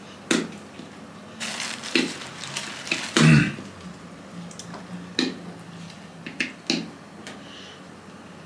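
Scattered clicks and clinks of dishes and cutlery at a meal table, with one louder knock about three seconds in.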